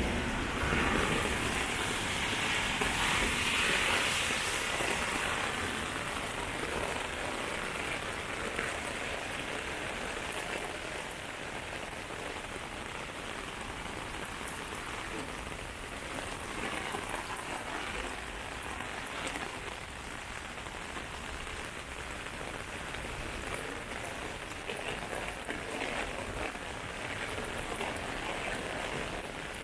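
Heavy rain falling on pavement and on an umbrella overhead: a steady hiss, louder for the first five seconds or so, with scattered drop ticks later on.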